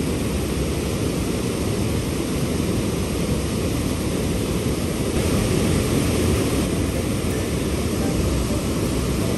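Steady wind rumble on the microphone, heaviest in the low end, swelling slightly about halfway through.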